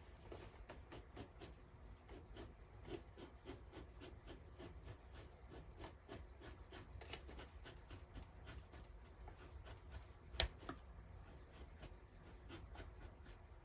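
Victorinox knife blade scraping and cutting fat and gristle off a beaver pelt in many quick, faint strokes, with one sharp click near the end.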